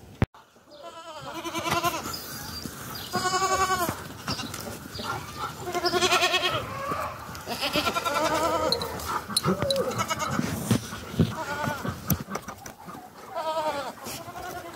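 Goats and kids bleating again and again, calls from several animals following one another, each with a wavering quaver.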